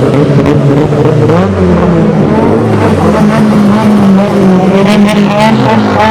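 Several car engines running loud and unbroken: one drops in pitch over about a second and a half, another holds steady, and revs climb again near the end.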